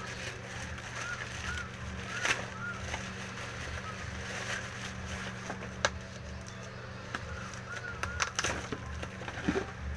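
Scattered clicks and knocks of a box and its packaging being handled, over a steady low hum, with short high chirps repeating in the background.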